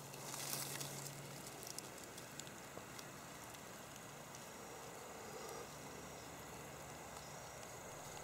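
Faint outdoor background: a low, even hiss with a few light clicks and a short rustle about half a second in.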